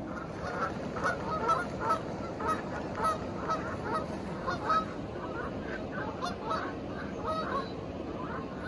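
Geese honking: a flurry of short calls, several a second, thinning out near the end, over the steady rush of water from the weir.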